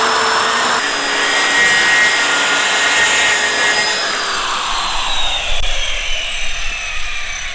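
Corded circular saw ripping across a sheet of half-inch plywood, its motor whining steadily under load. About four and a half seconds in the cut ends and the trigger is released, so the blade spins down with a falling whine.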